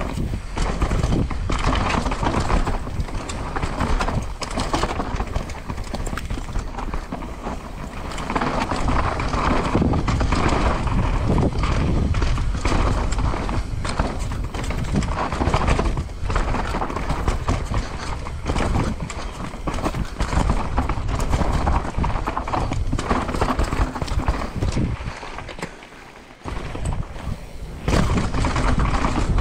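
Downhill mountain bike descending a rough trail at speed: tyres rumbling over dirt, roots and rocks, with constant rattling and clattering of the chain and frame, and wind noise over it. The clatter eases briefly near the end, then picks up again.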